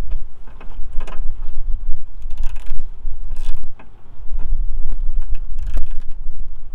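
Hand tools and metal fittings being handled while working on headlight mounting bolts: scattered clicks, rattles and creaks over a steady low rumble.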